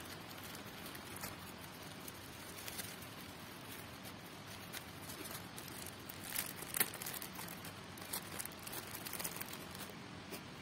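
Plastic packets crinkling as flour is poured out of one and bread slices are pulled from a bread bag, over a faint steady hiss. The sharpest crinkles come about six to seven seconds in.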